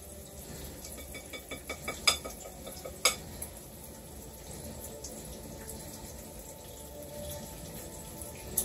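Steady sizzle of food frying in a pan on the stove, with a quickening run of light clicks and two sharp knocks about two and three seconds in, like a utensil against a bowl.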